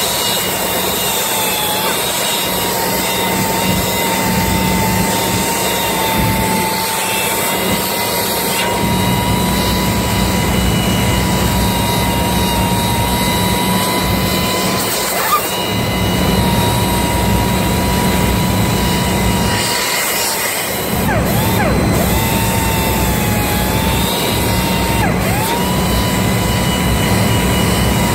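Handheld power tool running steadily against the stem of a ship's main-engine exhaust valve during cleaning, its motor whine wavering and dipping briefly in pitch a few times as it is pressed into the work. A steady low machinery hum lies underneath.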